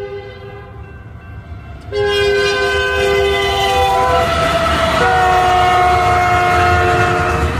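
Union Pacific freight locomotive's multi-chime air horn blowing a chord as the train passes at speed, getting much louder about two seconds in. After a short break around four seconds, the horn returns lower in pitch as the lead locomotive goes by, over the rumble of the locomotives and wheels.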